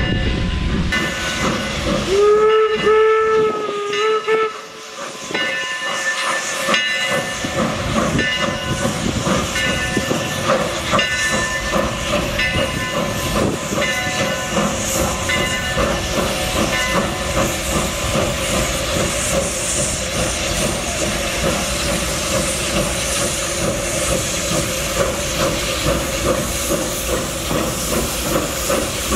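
Steam whistle of Eureka & Palisade No. 4, an 1875 4-4-0 steam locomotive, giving a blast about two seconds in. A run of short pitched strikes about once a second follows, then a steady hiss of steam as the engine comes up the track.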